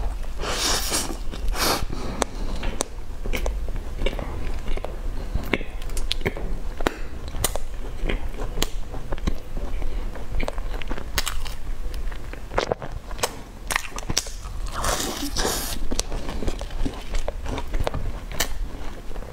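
Close-miked eating sounds: biting into and chewing a flaky pastry dipped in a dark sauce, with many sharp mouth clicks and crackles. A few longer, noisier stretches come about a second in and again around fifteen seconds.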